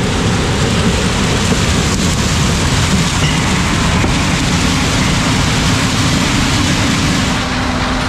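John Deere combine harvesting corn as its corn head passes close by. It gives a loud, steady mix of machine noise that drops off about seven seconds in.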